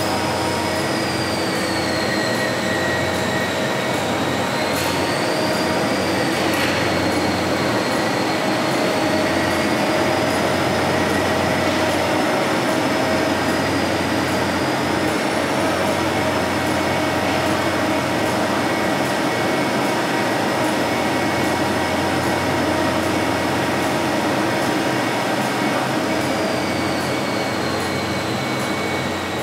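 Kirow railway crane's engine and hydraulics running steadily while the boom slews, with a high whine that slowly rises and falls several times.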